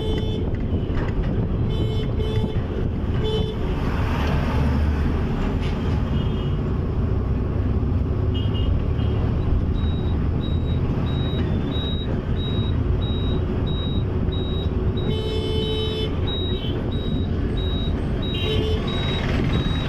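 Town traffic heard from a moving vehicle: a steady engine and road rumble, with vehicle horns honking several times, at the start, a few seconds in, and twice near the end. From about halfway through, a short high beep repeats about twice a second.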